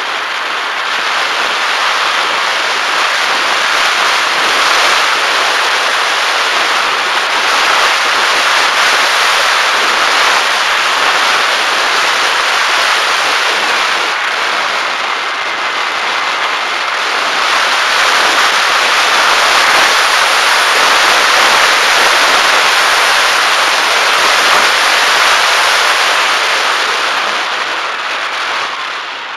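Rush of wind over the onboard camera of a Bixler 1.1 foam FPV plane in flight, a loud steady noise that swells and eases slowly. It drops off near the end as the plane slows and descends to land.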